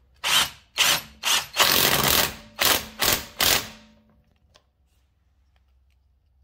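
Cordless impact wrench running a lug nut back onto a car wheel in a string of short trigger pulls, about seven bursts with one longer burst in the middle. It stops about four seconds in.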